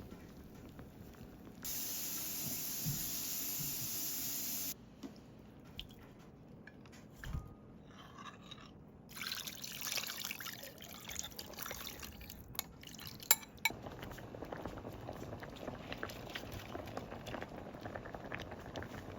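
Kitchen cooking sounds: water runs steadily for about three seconds near the start, then come scattered clinks and knocks of handling, and from about two-thirds of the way in a pot simmers steadily.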